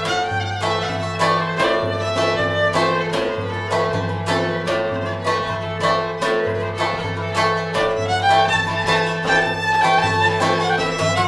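Violin, plucked lute and hand frame drum playing a traditional Cypriot tune together. The bowed violin carries the melody over the plucked strings, and the frame drum keeps a steady beat.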